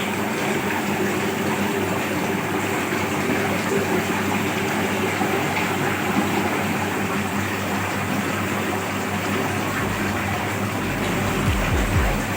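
Electric liquid-batter mixer running: a steady motor hum under the churning and sloshing of liquid being stirred in its tank, with a few low thumps near the end.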